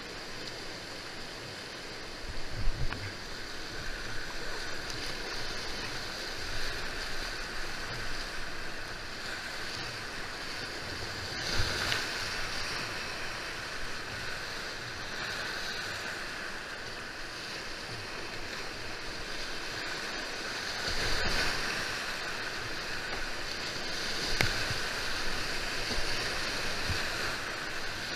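Whitewater rapids rushing steadily, heard from a kayak in the middle of them, with a few louder swells of splashing as the boat drives through waves.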